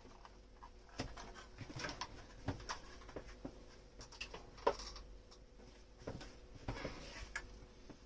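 Dishes and kitchenware being handled: a string of light, irregular knocks and clinks.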